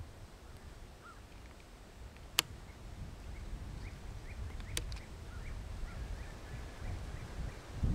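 Two sharp clicks about two and a half seconds apart as the Gamo Swarm Maxxim air rifle's magazine is unlatched and pulled out of the receiver. Faint short bird chirps and a low wind rumble on the microphone run underneath.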